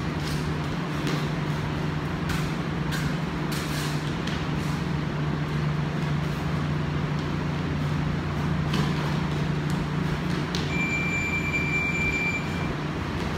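A steady low hum runs under scattered sharp slaps and thuds from two men sparring: strikes landing and feet on the mat. Near the end a single high electronic beep is held for about two seconds.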